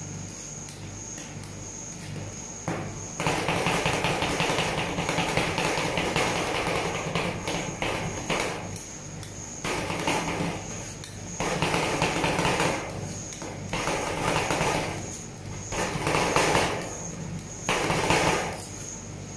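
Metal spatulas chopping and scraping on the frozen stainless-steel plate of a rolled ice cream machine, working the ice cream mix: a long spell of rapid chopping and scraping starting about three seconds in, then five shorter bouts. A steady low hum runs underneath.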